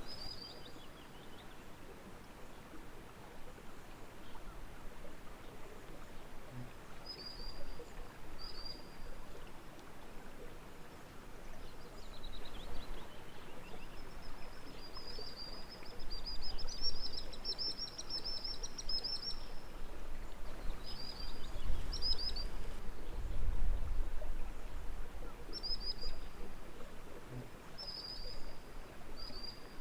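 Songbirds calling in short, high whistled phrases, repeated every few seconds, with a longer run of rapid notes in the middle. A low rumble lies underneath.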